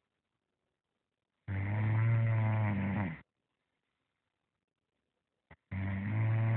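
Snoring in deep sleep, from someone who has passed out. There are two long, pitched snores with silent pauses between them: the first comes about a second and a half in, and the second starts near the end, just after a faint click.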